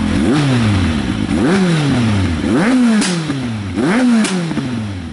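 The Kawasaki Z750's inline-four is revved four times from a standstill through a MIVV GP silencer with its dB killer fitted. Each blip rises quickly and falls back, about one a second, with sharp pops and bangs from the exhaust as the revs drop off the throttle.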